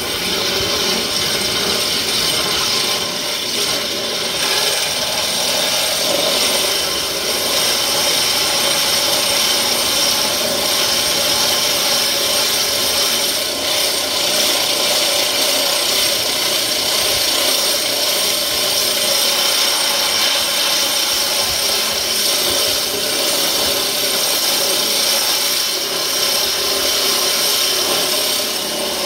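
Angle grinder with a brand-new Star Cup wheel grinding paint off a steel plate, running steadily under load as the wheel is worked across the metal.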